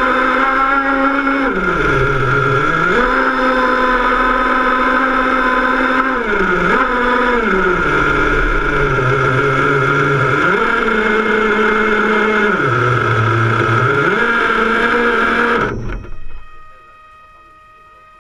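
Off-road RC car's motor running under throttle, its pitch stepping up and down several times as the car speeds up and eases off. It cuts off sharply near the end as the car stops.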